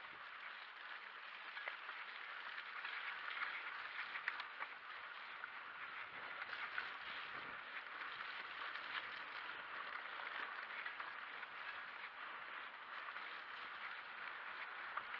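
Full-suspension mountain bike rolling along a wet, muddy singletrack: a steady hiss of tyres on mud and grass with rattle from the bike, and a few sharp clicks.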